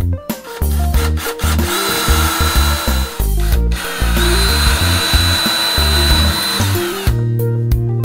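Cordless drill running twice, boring holes into a wooden cabinet door. The first run starts about two seconds in and stops after about a second and a half; the second runs for over two seconds, each with a steady motor whine. Background music with a steady bass line plays underneath.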